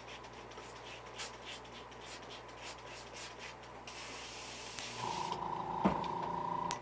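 An airbrush being cleaned: faint scratchy rubbing, then about four seconds in a short burst of hissing spray. A steady hum starts about five seconds in.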